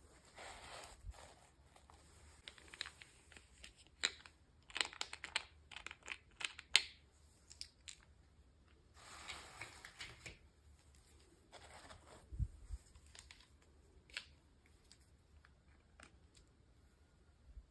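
Hands opening toy packaging: short bursts of rustling and tearing mixed with scattered sharp clicks of plastic, fairly faint.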